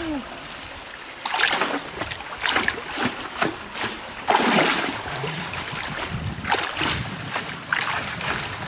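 Water splashing and sloshing in an irregular series of bursts, as from someone moving or working in stream water; the biggest splash comes about halfway through.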